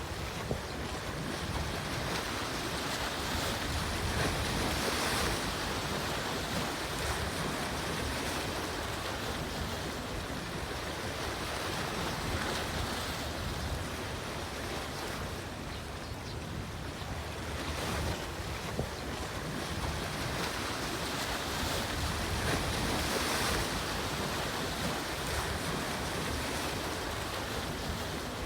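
Sea waves washing in, swelling and easing every few seconds, with wind.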